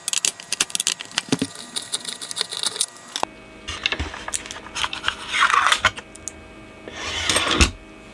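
Rapid clicking of a screwdriver working a screw out of an amplifier chassis. Then come scraping and rubbing as the Class D amplifier circuit board is pulled free of its metal heatsink chassis and handled on the bench, with two louder scrapes in the second half.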